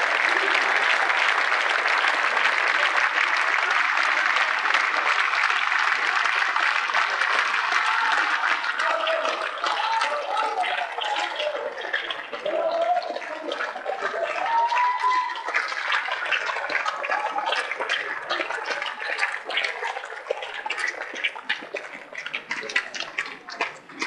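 Theatre audience applauding: dense applause for the first several seconds, then thinning out into scattered individual claps, with a few voices heard through it.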